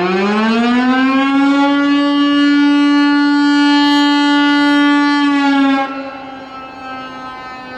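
Fire-brigade alarm siren sounding one long blast of its fire-outbreak signal. It rises in pitch, holds a steady tone for about five seconds, then drops suddenly in loudness and carries on quieter, a little lower in pitch.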